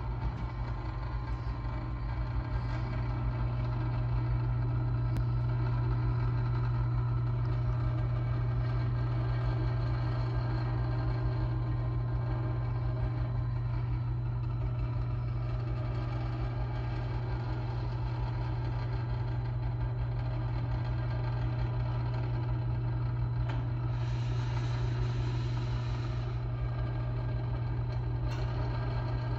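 Electric winch motor of a ceiling-mounted, fold-up basketball backstop running steadily as it folds the backstop up toward the ceiling: a constant low mechanical hum.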